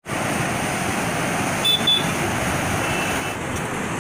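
Swollen, turbulent floodwater of the Penna River rushing steadily past bridge piers, a continuous even roar of water. About two seconds in, two short high-pitched beeps sound over it.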